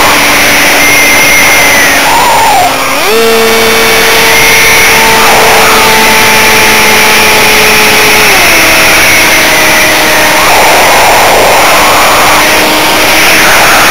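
Electric motor and propeller of an RC plane whining, picked up by a camera mounted on its nose, with wind rush over the airframe. The whine steps up in pitch about three seconds in, drops about halfway through, and rises again near the end as the throttle changes.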